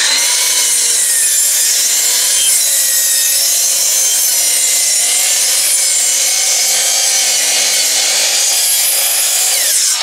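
12-inch sliding miter saw cutting through a 6x6 wooden post: the blade runs loud and steady under load, then a falling whine as it spins down near the end. This is a first pass, since the post is too deep for the saw to cut through in one go.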